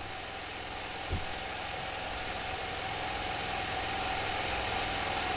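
Steady mechanical hum, like a running engine, with a faint steady tone above it. There is a soft thump about a second in.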